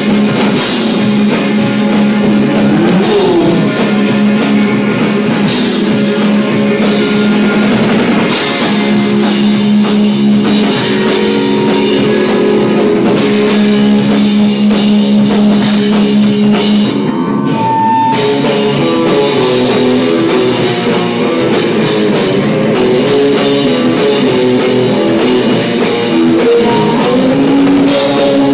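A garage rock band playing live: guitars and a drum kit with cymbals, loud and continuous. About two-thirds of the way through, the cymbals drop out for a moment before the band carries on.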